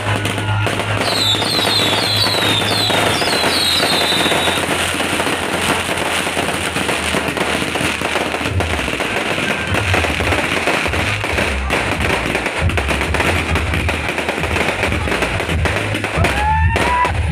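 Dense, continuous crackling and popping of firecrackers and fireworks, with a quick run of short high whistling chirps in the first few seconds. A sound system's bass-heavy music pounds underneath.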